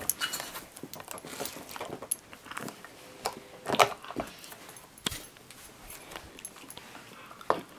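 A husky moving about right against the microphone: its metal collar tags jingle and clink while fur rustles. A few sharper knocks stand out, the loudest about four seconds in.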